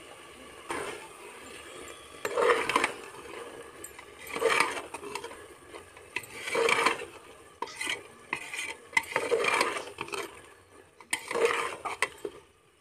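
Perforated steel ladle stirring and scraping thick carrot halwa in a metal pressure cooker pan, five strong strokes about every two seconds, with sharp clinks of ladle on pot between them.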